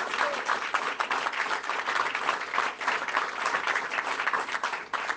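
A crowd applauding: many people clapping in a dense, steady patter of hand claps.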